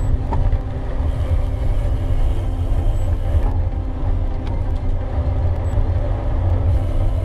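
Wind buffeting the microphone as a rumble, with steady tyre hum from a Canyon Grail gravel bike rolling along at riding speed.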